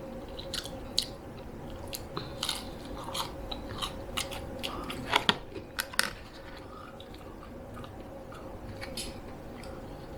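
Close-miked chewing and biting of McDonald's food, a run of sharp mouth clicks that is busiest in the first six seconds and thins out after. A faint steady hum runs underneath.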